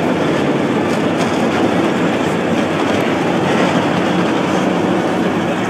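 A field of NASCAR Camping World Truck Series race trucks, V8 engines running together at pace-lap speed before the green flag, a steady dense rumble.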